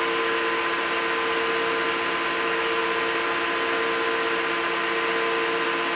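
Tensile testing machine running steadily as it pulls a steel test bar under load: an even hum with a few held tones over a hiss.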